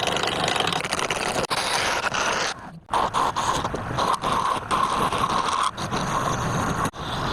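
A tool carving into wood with a loud, continuous rough scraping, broken by a short pause about two and a half seconds in.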